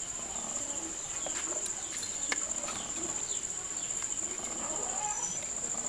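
A steady high-pitched whine, with a few faint short chirps and small clicks as bare wire ends are handled at the pins of a small six-pin toggle switch.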